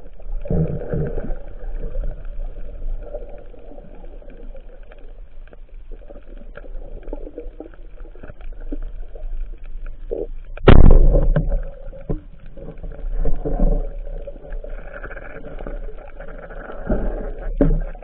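Muffled underwater noise heard through a camera housing as a freediver swims: a steady low water rumble with sloshing swells. About ten and a half seconds in comes one loud, short thump, the band-powered speargun being fired.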